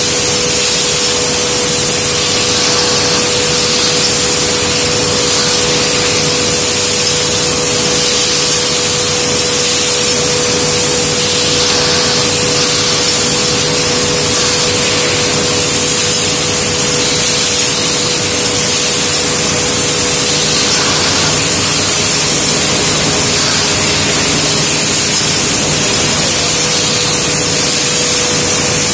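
Glass bottle-forming machine running on the factory floor: a loud, steady hiss with a constant mid-pitched tone underneath.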